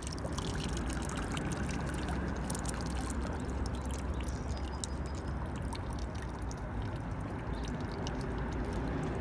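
Steady rush of river water flowing, with faint small ticks and splashes scattered through it.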